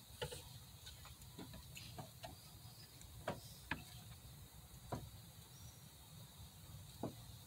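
Faint light clicks and knocks, about nine of them at uneven intervals, as a replacement alternator is handled and worked into its mounting bracket by hand.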